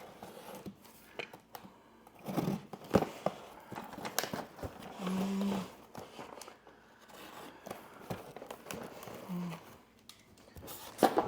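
Cardboard box and packing material being opened and rummaged through: rustling and crinkling with scattered light knocks and clicks.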